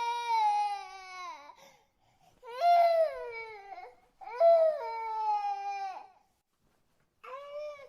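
Infant crying in long wails, each starting high and sliding down in pitch, with short breaths between them. One wail trails off about a second and a half in, two more follow, and a short fourth cry starts near the end.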